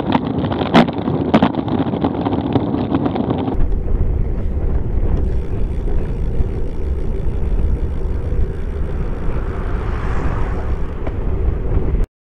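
Wind and road rumble picked up by a bicycle-mounted camera while riding at about 16 mph, with two sharp clicks in the first couple of seconds. About three and a half seconds in, the sound switches abruptly to a deeper, steady rumble from the rear-facing camera.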